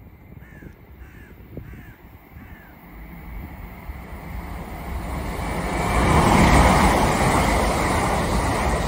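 A Great Western Railway passenger train approaches and passes at speed: a rushing noise builds from about three seconds in, is loudest at six to seven seconds and stays loud as the carriages go by. Before it, a bird calls four times in quick succession.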